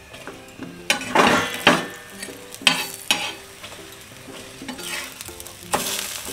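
A stuffed paratha sizzling in oil on a hot iron tawa while a flat steel spatula presses and spreads it, with loud bursts of sizzle about a second in, around three seconds, and near the end.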